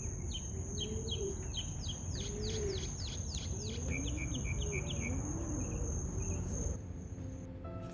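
Outdoor ambience: birds singing a run of quick, repeated downward chirps that speed up and then trail off, over a steady high trill like a cricket or cicada. The trill stops near the end, and soft music begins just before the end.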